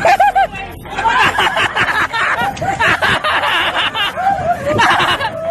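A group of people laughing, shrieking and shouting over one another in excitement, with many voices overlapping.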